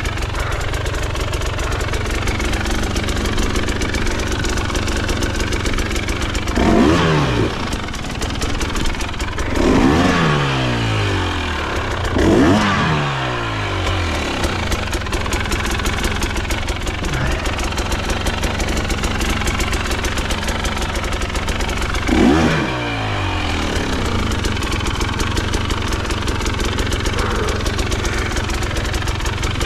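KTM dirt bike engine idling steadily, revved in four short bursts that each fall back to idle, the last one well after the others.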